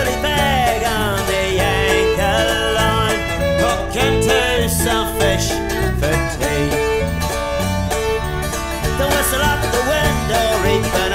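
Country-bluegrass song with banjo and guitar over a steady, repeating bass line, in a stretch with no sung words.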